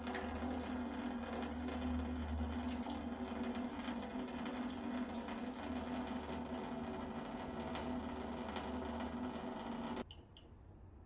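Water draining out of the opened drain vent of a countertop reverse-osmosis water purifier: a steady flow with a low hum under it, cutting off abruptly about ten seconds in.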